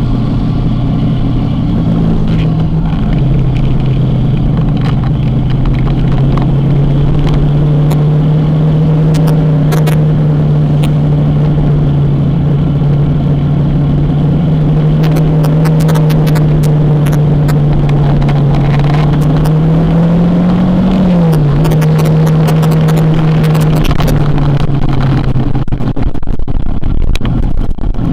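Kawasaki motorcycle engine running at a steady cruising pace, its pitch shifting slightly with the throttle, with a quick rise and drop in revs about two-thirds of the way through.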